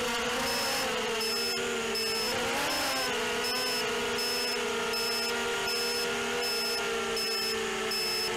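ZMR180 quadcopter's motors and propellers whining steadily in flight, the pitch wavering briefly about three seconds in. A short high electronic beep repeats about every two-thirds of a second, starting about half a second in.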